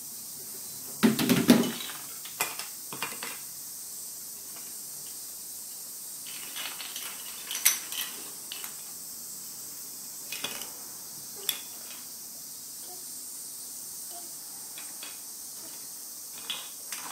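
Plastic toy bricks clattering and knocking against each other and a wooden floor in scattered clicks, with the loudest cluster of knocks about a second in.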